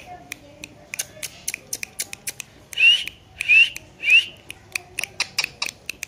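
Rose-ringed parakeet giving three short rising whistled chirps in the middle, amid many sharp irregular clicks.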